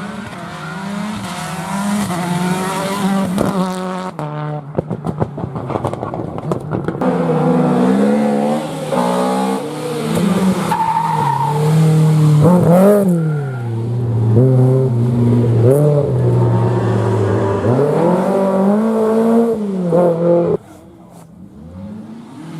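Rally car engine revving hard, its pitch climbing and falling again and again through the gears, with a run of sharp crackles about four to six seconds in. The sound drops away suddenly near the end.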